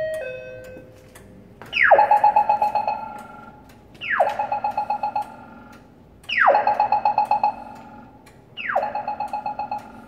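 Polara Navigator accessible pedestrian signal playing its chirping-tick walk sound, a custom Australian-style tone: a quick falling electronic chirp followed by a rapid burst of ticks, repeating about every two and a quarter seconds, four times. It marks the walk phase.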